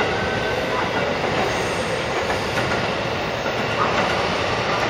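JR West 223 series electric train rolling into the station: a steady noise of steel wheels on the rails and running gear, with no single louder event.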